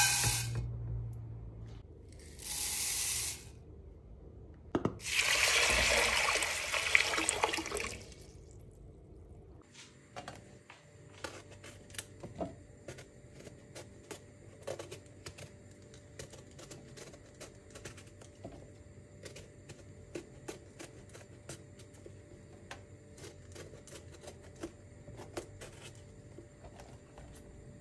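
Dry green lentils rattling into an enamelled pot, then water running from a tap for about three seconds. After that, a knife peeling eggplant skin: a long run of small, irregular scrapes and clicks.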